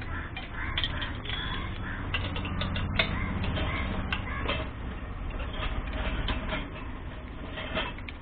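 Sharp metal clicks and clinks of a spanner working a nut on an old Royal Enfield Bullet engine, with birds calling in the background.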